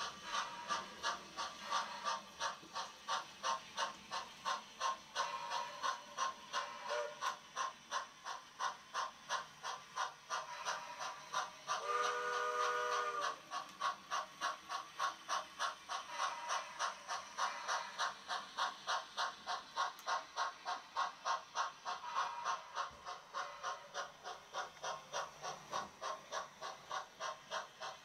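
Model steam locomotive's sound effects: steady, rapid chuffing. About twelve seconds in, a chord whistle sounds once for about a second and a half.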